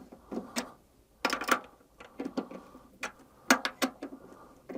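Drumstick strokes on a 12-inch Yamaha Stage Custom tom fitted with a Jobeky three-ply mesh head: a dozen or so quiet, sharp taps, many in quick pairs.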